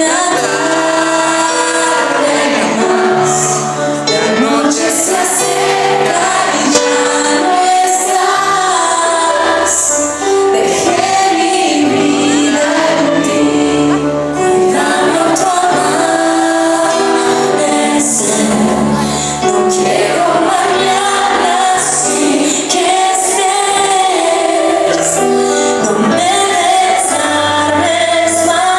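Pop song with several women singing together over a band, performed live.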